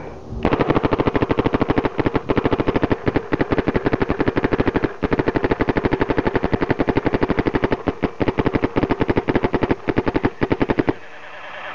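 Planet Eclipse Ego SL8R electropneumatic paintball marker firing long, fast strings of shots with a few brief pauses. The firing stops about eleven seconds in.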